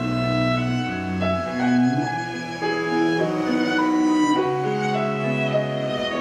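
Violin playing a melody over double bass in a small live band, the notes held and changing every half second or so.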